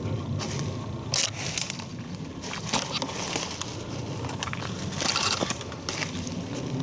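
Footsteps crunching and snapping through dry twigs and brush, with louder cracks about a second in, near three seconds and around five seconds.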